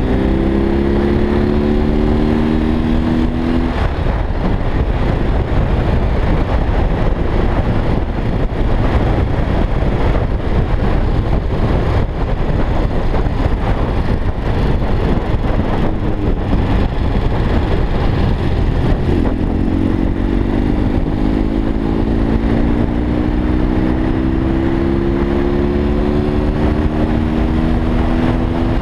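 BMW R45's air-cooled flat-twin engine pulling under acceleration, its note rising steadily for the first few seconds and again through a long pull from about two-thirds of the way in. In between, a dense rushing noise of wind and road covers the engine while the motorcycle cruises.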